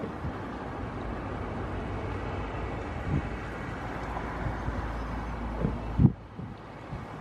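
Wind rumbling and buffeting on the camera microphone, with a few short low thumps; the loudest comes about six seconds in, and the rumble drops away after it.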